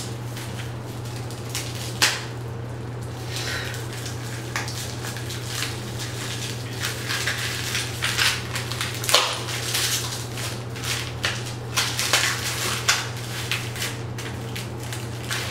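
Package being opened and handled by hand: plastic wrapping crinkling and rustling, with sharp clicks and knocks of small hard parts, the loudest about two seconds in and again about nine seconds in. A steady low hum runs underneath.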